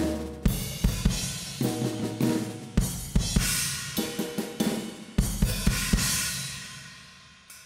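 Drum kit solo: fast fills across snare, toms and bass drum, punctuated by cymbal crashes. Near the end a crash is left ringing and fades out.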